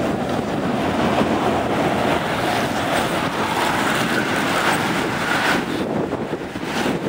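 A bunch of road racing bicycles rushing past close by: a steady whoosh of tyres and moving air, loudest around the middle as the riders go by, over wind on the microphone.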